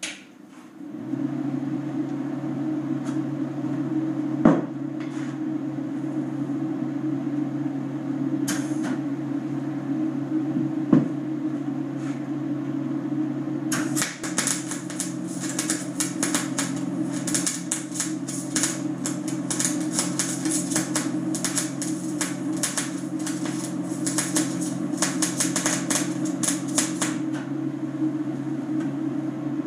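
Welder switched on about a second in, humming steadily. From about halfway, an arc welder crackles in several short runs as steel tubing is tack welded to the plow frame, stopping shortly before the end. Two sharp knocks in the first half.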